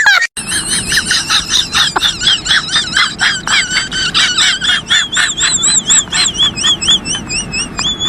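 High-pitched squeaky laugh sound effect: a fast run of short cackling pulses, about five a second, whose pitch begins to warble up and down about five seconds in.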